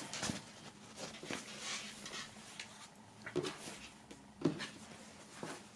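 A thin fabric flag being unfolded and spread out by hand: faint, intermittent rustling with a few soft knocks.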